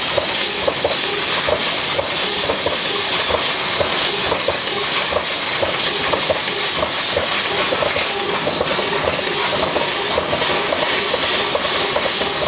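CNC laser cutting machine cutting steel: a steady loud hiss, typical of the cutting-gas jet at the head, with many short pitched blips recurring throughout.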